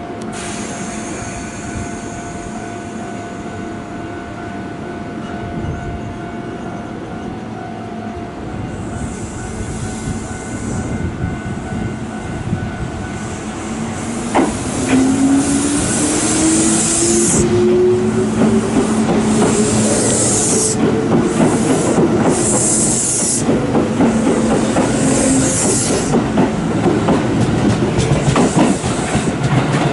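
Kintetsu 12200 series 'Snack Car' electric limited-express train passing close by, wheels clattering on the rails. Its traction motors whine with a steadily rising pitch as it picks up speed, with repeated bursts of hiss.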